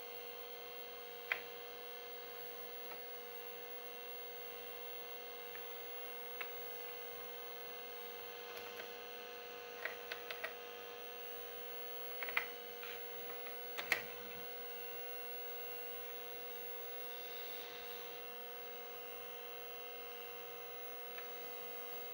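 Amstrad PC 1512 fitted with a 20MB hard disk, running: a steady electrical hum with a higher whine over it. Short clicks come now and then, in a small cluster about halfway through and loudest near two-thirds of the way in.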